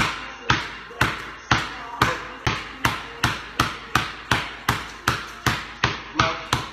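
Basketball dribbled on a concrete floor: sharp, steady bounces about two a second that quicken slightly toward the end.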